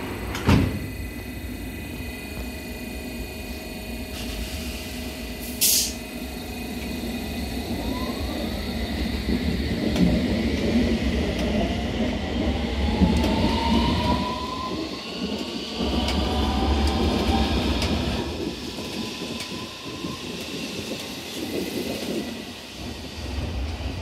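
London Underground S7 Stock train departing: a sharp knock as the doors shut, a brief hiss about five seconds later, then the train pulls away, its traction motors' whine climbing in pitch over several tones as it accelerates, over a steady rumble of wheels on the track.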